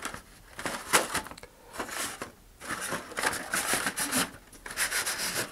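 Thin vacuum-formed plastic fairings and cardstock alignment jigs being handled and pushed against a cardboard rocket body tube: irregular rustling and scraping with a few sharp clicks, denser in the second half.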